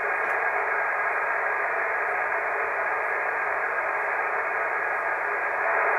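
Steady hiss of band noise from a Yaesu FT-450D HF transceiver's receiver, listening on an empty 20-metre channel with no station answering a CQ call. The static is thin and telephone-like, cut off above and below the voice range.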